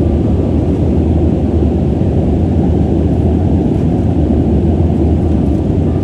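Steady cabin noise inside an airliner descending to land: jet engine drone and airflow rushing past the fuselage, a low, unbroken rumble with a constant deep hum.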